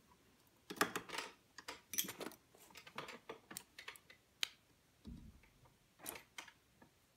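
Quick, irregular clicks, taps and rustles of hands handling plastic wonder clips, small scissors and fabric at a sewing machine, with a soft low thump about five seconds in.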